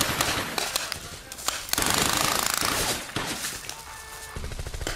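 Paintball markers firing: scattered sharp pops, then a fast continuous rattle of shots about two seconds in that lasts around a second.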